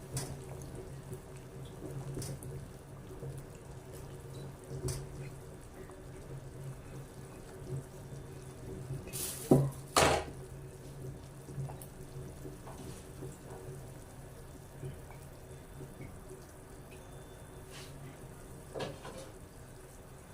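Water running and splashing in a kitchen sink, over a steady low hum, with scattered light clinks and two sharp knocks about halfway through.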